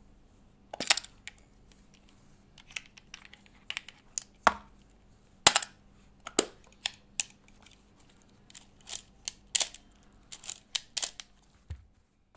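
Irregular mechanical clicks and knocks of an Olympus 35 mm film SLR being handled: a knob turned, the back and its parts worked, a film cassette taken out.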